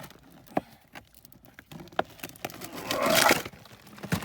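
Digging and pulling through packed soil and buried rubbish: a few sharp knocks and taps, then a louder scrape about three seconds in.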